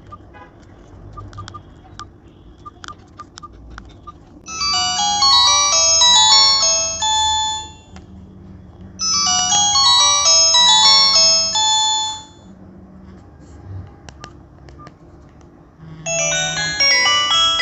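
Nokia 106 (2017) playing ringtone previews through its small loudspeaker at full ringtone volume: bright electronic melodies of quick notes, each lasting about three to four seconds. Two play in the first part, separated by short quiet gaps with a few faint clicks, and a third begins near the end.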